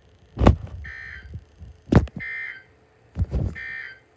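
Emergency Alert System end-of-message signal: three short bursts of two-tone digital data warble, about a second and a half apart, marking the end of the alert. Each burst is preceded by a loud thump, the loudest thing heard.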